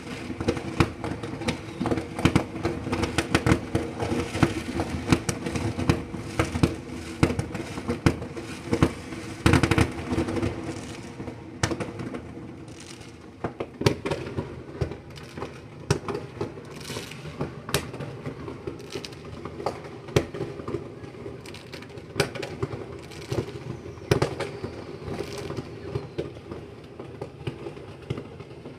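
Fireworks going off in rapid bangs and crackles. They are densest and loudest for roughly the first ten seconds, then thin to scattered reports, with a steady low hum beneath the early part.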